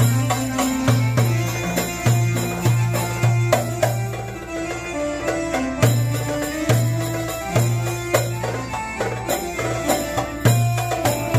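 Live Egyptian belly-dance music: an electronic keyboard plays a repeating bass line and melody while a hand drum beats a quick, busy rhythm.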